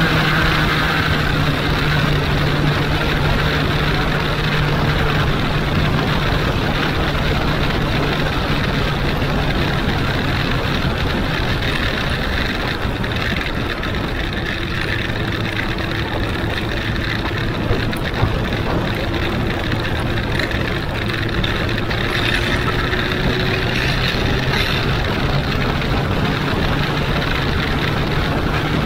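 Benelli (Huanglong) 600 motorcycle's inline-four engine running at a steady cruise, with wind and road noise on the microphone. The engine note drops somewhat about halfway through and comes back up near the end.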